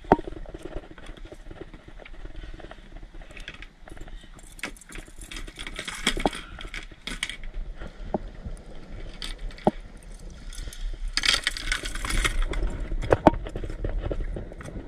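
Scattered sharp knocks and short bursts of clatter from gear being handled in a plastic sit-on-top kayak, with a steady low rumble underneath.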